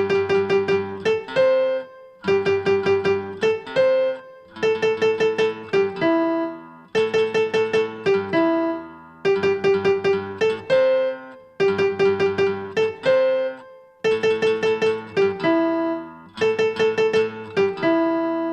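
Instrumental music: a short melodic phrase played over and over, eight times, about every two seconds. Each phrase is a quick run of repeated notes ending on one or two longer held notes.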